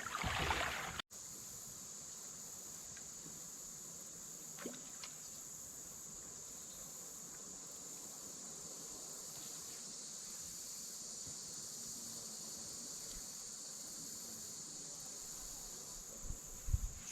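Steady high-pitched chorus of insects, with a few low thumps near the end.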